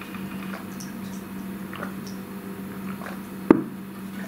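Person gulping water from a plastic bottle, with one sharp click about three and a half seconds in, over a steady low hum.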